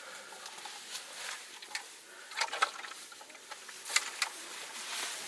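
Irregular rustling with scattered light clicks and small knocks, several sharper ticks near the middle and about four seconds in.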